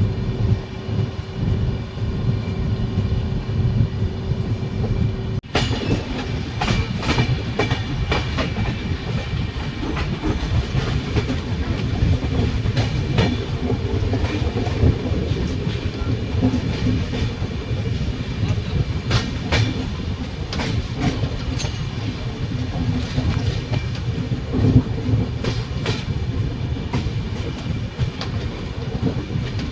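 Moving train running on rails, its wheels clattering over the rail joints under a heavy rumble. The sound changes abruptly about five seconds in, becoming a busier clatter with many sharp clicks.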